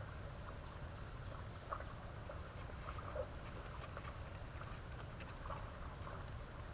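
Faint rustling and light irregular ticks of a white-tailed deer stepping through dry leaf litter, mostly in the middle of the stretch, over a steady low hiss.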